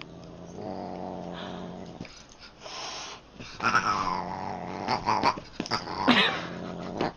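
A cat growling low and steadily, with two yowls that slide down in pitch about four and six seconds in.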